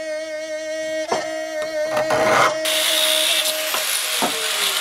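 Hand-held angle grinder grinding steel, a loud harsh hiss that sets in about halfway through, over a steady droning note of background music.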